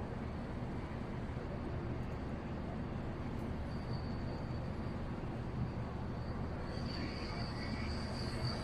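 Steady low hum of a docked cargo ship's machinery. A faint high whine comes in about four seconds in and grows stronger near the end.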